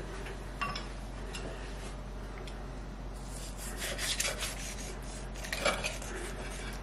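Carving knife slicing through a roast chicken, with the carving fork and blade scraping and clinking against the plate. A light click about half a second in, then scraping cuts in two spells, around the middle and again near the end.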